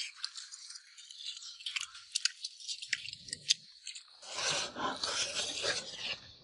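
Meal sounds: scattered light clicks and scrapes of tableware, with a louder, denser rustling, chewing stretch about four seconds in.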